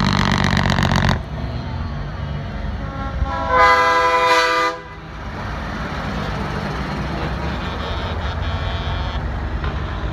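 Semi truck convoy passing close: a loud diesel engine note that ends about a second in, then one air-horn blast of about a second, sounding several tones together, followed by the steady rumble of the trucks' diesel engines going by.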